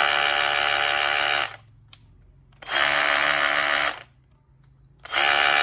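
Bosch GBH 18V-26D cordless brushless SDS-plus rotary hammer run free with no bit and no load in three short trigger pulls. Each is a steady motor whine lasting one to two seconds, with short quiet gaps between.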